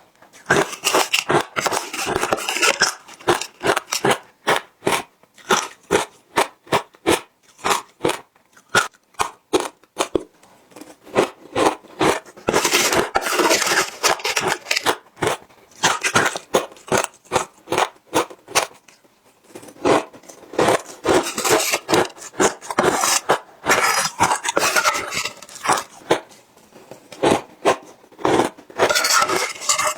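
Ice being bitten and chewed close to the microphone: runs of rapid, sharp crunching several times, with single cracks between them.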